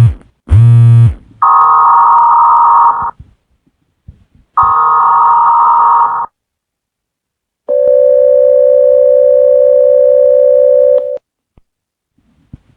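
Emergency Alert System tones from a mock tornado warning: three short bursts of digital header data, with a brief low buzz after the first, then a gap and a steady attention tone lasting about three and a half seconds.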